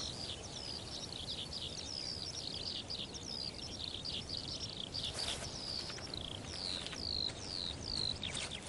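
Birds chirping: a steady chorus of short, high calls, each falling in pitch, several a second and often overlapping, over a faint outdoor hiss. The calls are clearest near the end.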